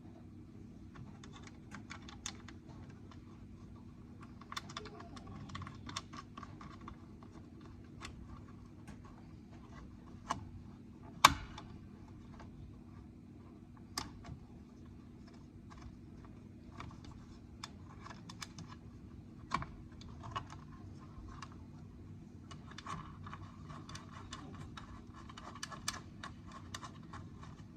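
Irregular small clicks, taps and rattles of hard parts being handled and fitted as the drop saw's blade safety guard is put back into position, with one sharper knock about eleven seconds in.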